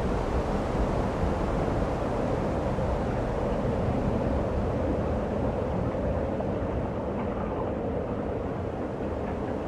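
Steady wind buffeting the microphone, with surf noise from breaking waves underneath; an even, unbroken rumble throughout.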